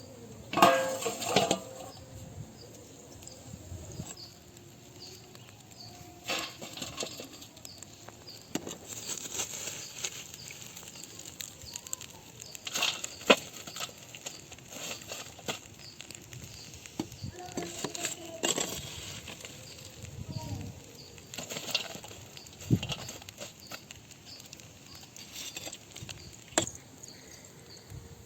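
Intermittent rustling, clinks and knocks of cooking things being handled, over a faint, steady chirping of insects.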